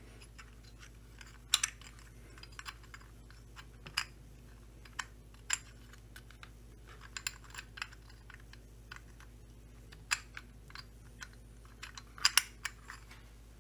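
Irregular small clicks and taps of metal and plastic parts being handled and fitted around the clutch side of a Stihl 025 chainsaw, a few of them sharper, over a faint steady hum.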